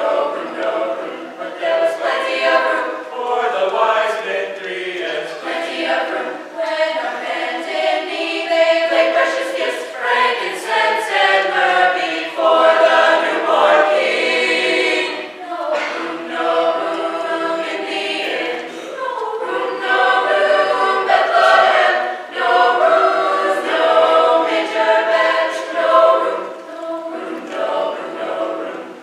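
High-school girls' choir singing, several voices together in sustained, shifting chords.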